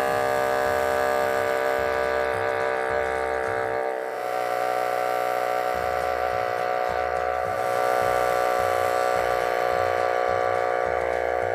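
The motorized airbrush of a Hot Wheels Airbrush Auto Designer toy running steadily as it sprays paint through a stencil: a loud, even whirring hum. It dips briefly and drops slightly in pitch about four seconds in.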